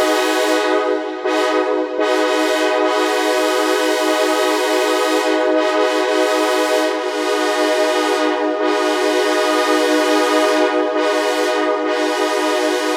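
Synthesizer imitating a multi-chime train horn, holding one long chord of several notes at once. It dips briefly twice near the start, and its lowest note shifts slightly lower about seven seconds in.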